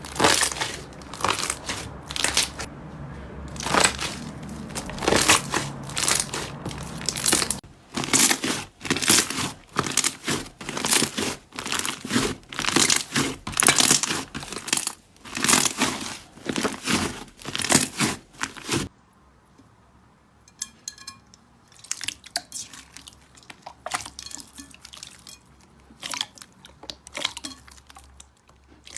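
Slime being squeezed and pressed by hand, giving a run of crackling, crunching squishes. The squishes come in repeated surges, then turn quieter and sparser for the last third.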